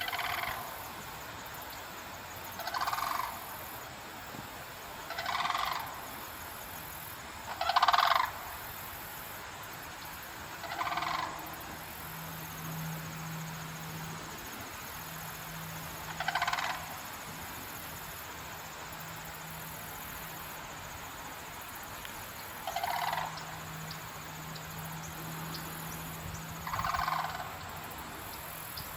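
A pair of sandhill cranes giving loud rolling, trumpeting calls: about eight calls spaced a few seconds apart, the loudest about eight seconds in. A low steady hum runs under them from about ten seconds on.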